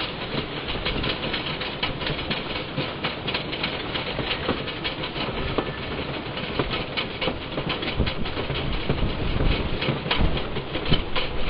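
Wooden roller coaster train climbing the chain lift hill: rapid, steady clacking of the lift chain and anti-rollback ratchet under the car. It grows louder and heavier near the end as the train reaches the crest.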